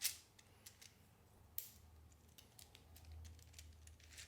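Sparse, faint clicks and light clacks of Lego Technic plastic parts as the Chiron's model engine assembly is handled and turned by hand, with a sharper click right at the start and another about a second and a half in.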